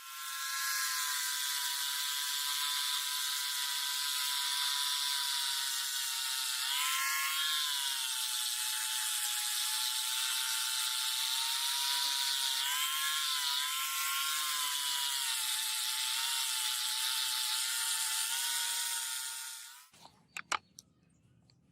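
A small electric power tool motor running with a steady high whine and a hiss of abrasion. Its pitch sags briefly about seven seconds in and again around thirteen seconds, and it stops about twenty seconds in.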